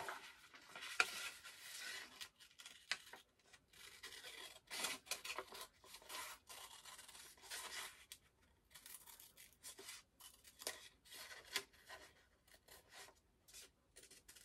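Scissors cutting through a printed paper sewing pattern: a quiet, irregular run of short snips mixed with the rustle of the paper sheet being turned and handled.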